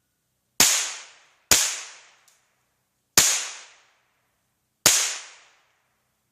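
Four shots from a Marlin Model 795 semi-automatic .22 LR rifle, fired at uneven intervals, each crack trailing off over about half a second.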